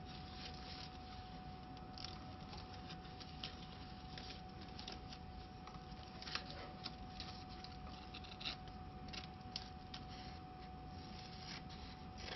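Hands handling a roll of printed paper labels on a label finishing machine's take-up mandrel: scattered light rustling and clicking of the label web and roll, over a faint steady hum with a thin whine.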